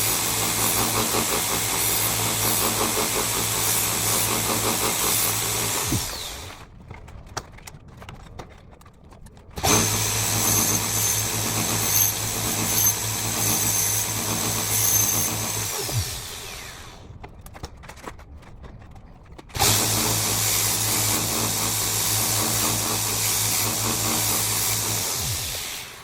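Electric belt grinder running with a steady hum and a hiss of grinding while a blade is sharpened on it. It is switched off and winds down three times, about every ten seconds, and starts up again abruptly twice in between.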